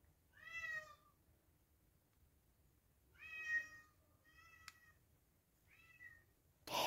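Domestic cat meowing four times, short separate meows, the last one faint. A single sharp click comes during the third meow.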